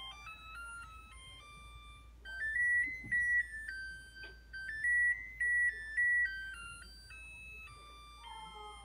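Oven timer's end-of-countdown alert: an electronic melody of pure beeping tones stepping up and down in pitch, loudest in the middle, signalling that the timer has run out.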